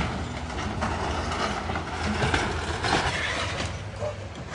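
Excavator demolishing a wooden building: timbers cracking and debris crashing down over the steady running of the diesel engine, with several louder crunches through the middle.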